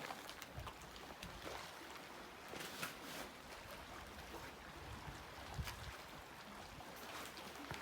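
Faint steady outdoor ambience of moving water, with a few soft clicks and knocks.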